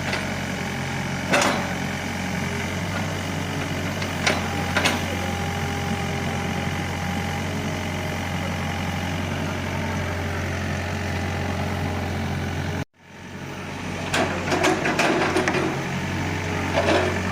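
Excavator's diesel engine running steadily, with a few sharp metallic knocks early on and a burst of clattering knocks later from the digging work. The sound cuts out briefly about thirteen seconds in, then comes back.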